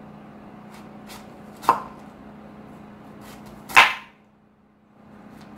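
Knife slicing through a red cabbage onto a plastic cutting board: a few separate cuts, two of them loud, one under two seconds in and one near four seconds in.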